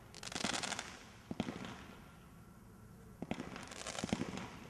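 Combination roman candle firing: sharp shots, each cluster followed by a hissing crackle from the stars, with a quieter gap of about two seconds in the middle.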